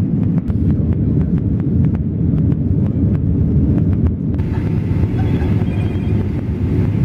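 Airliner cabin noise in flight: a loud, steady low rumble of jet engines and rushing air. About four seconds in it turns hissier.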